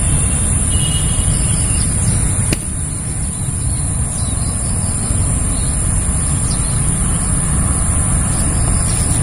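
Steady low rumbling noise with a constant thin high-pitched whine over it; a single sharp click about two and a half seconds in, after which the rumble drops a little.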